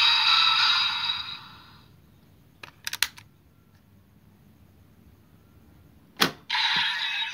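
Electronic sound and narration from a Bandai DX Wonder Ride Book's small speaker, fading out in the first two seconds, then a quick run of plastic clicks as the book is snapped shut. Near the end a single sharp plastic click as the book is slotted into the DX Seiken Swordriver belt, whose electronic sound starts straight after.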